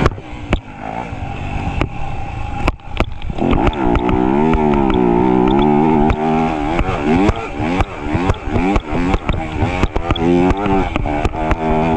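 Dirt bike engine riding a motocross track. It runs quieter and choppier for the first few seconds, then revs up and down hard from about three and a half seconds in, with sharp knocks and clatter throughout.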